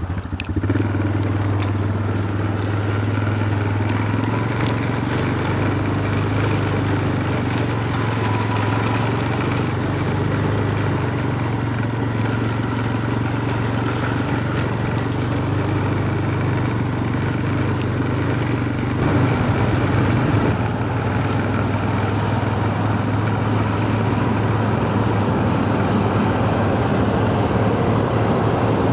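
Vehicle engine running steadily at a constant note, with a short rise in level about two-thirds of the way through.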